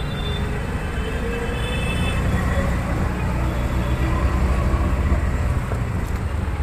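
Auto-rickshaw engine running steadily in slow city traffic, heard from the passenger seat, with the hum of surrounding traffic.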